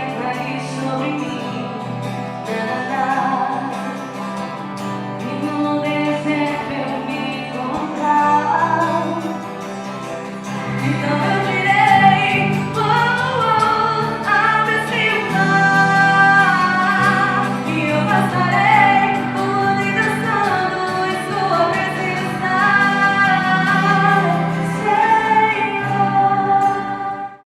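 A Christian worship group performing a livelier praise song live, with singing over instrumental accompaniment; the music cuts off abruptly at the very end.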